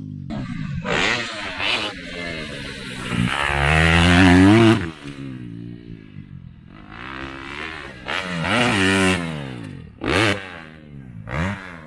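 Motocross bike engine revving up and falling off again and again, its pitch swooping with the throttle, loudest about four seconds in. A short, sharp blip of throttle comes about ten seconds in.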